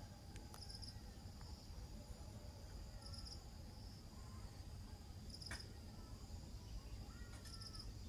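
Insects, likely crickets, chirping faintly: a steady high trill with short, sharper chirps every couple of seconds. A few faint bird calls rise and fall in the background.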